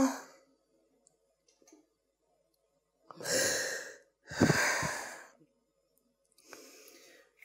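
A woman crying: two loud, shaky sobbing breaths about three and four seconds in, then a fainter breath near the end.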